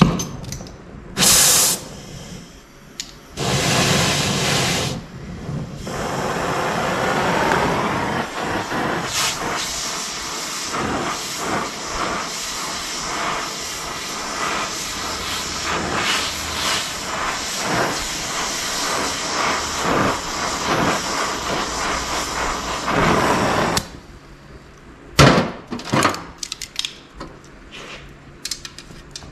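Oxy-fuel torch flame hissing as it heats a flat steel bar red-hot for bending. There are two short bursts of gas in the first few seconds, then a steady hiss for about eighteen seconds that cuts off suddenly, followed by a few sharp metal clanks.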